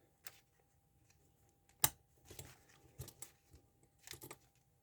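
Small metallic clicks and taps of a shim being worked into a Yuil handcuff's lock, with one sharper click a little under two seconds in.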